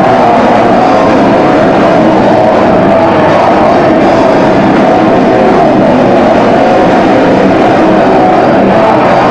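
Rock band playing a song with electric guitars and drums, loud and without a break; the recording is overloaded, so the instruments blur into a dense, distorted wash.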